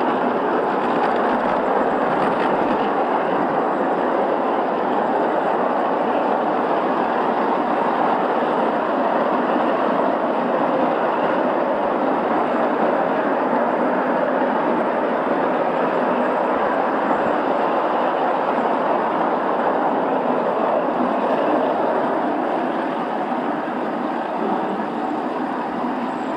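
A miniature railway train running along its track, heard from atop the locomotive: a steady running noise of wheels on rails, easing slightly near the end.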